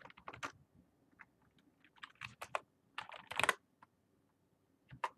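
Typing on a computer keyboard, keystrokes clattering in irregular bursts with a quick run of keys about three seconds in, as a web search is entered.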